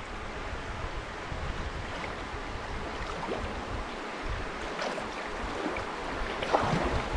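Shallow river rapid rushing over rocks around a canoe, a steady wash of water, with a few light splashes about three, five and six and a half seconds in.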